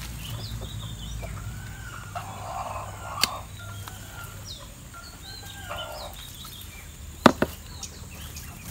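Chickens clucking in the background, with sharp clicks from a metal hand tool on the bonsai: once about three seconds in, and twice in quick succession about seven seconds in.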